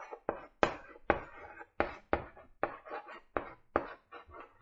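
Chalk writing on a blackboard: a run of short, sharp taps and scrapes, about two to three a second, as each letter stroke is drawn.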